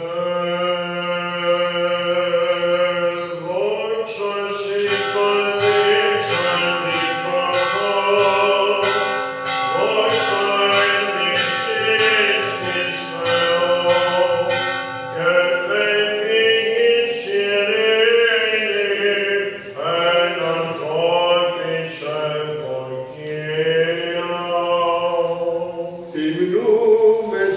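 Byzantine chant in Greek: a male chanter sings a melismatic line over a steady held drone, the ison.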